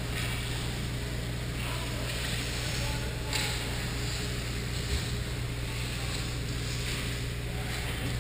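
Ice-rink sound during a youth hockey game: a steady low hum under the scrape of skates and clack of sticks on the ice, with a couple of sharper knocks about three and five seconds in.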